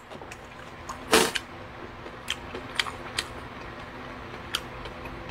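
Close-miked eating sounds from a man eating chicken soup with chopsticks: a short, loud, noisy puff about a second in, then scattered sharp clicks of chewing and chopsticks, over a faint steady hum.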